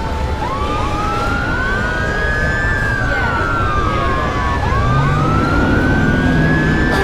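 Several police sirens wailing at once, their pitches rising and falling slowly and overlapping, with fresh rises starting near the start and again about five seconds in, over a steady low rumble of city traffic.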